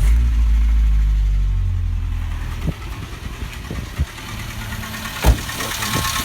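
Renault Logan engine catching on a cold start, running high at first and settling over about two seconds into an idle. A handful of sharp, irregular knocks then come through the idle, the loudest about five seconds in. The valves have been adjusted and ruled out, so the owner takes the knock for most likely a slight piston knock.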